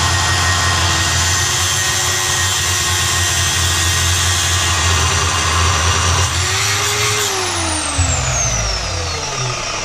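Parkside PTMS 180 A1 metal cutting saw, a 1280 W circular cut-off saw, running under load as its blade cuts through a 2 mm-wall steel square tube. After about seven seconds the motor is switched off and spins down with a falling whine.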